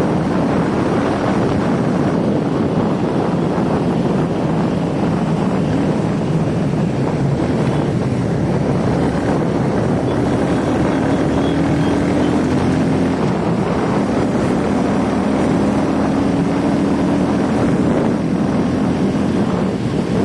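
Royal Enfield Classic 350's single-cylinder engine running steadily through its stock exhaust, with wind noise on the microphone.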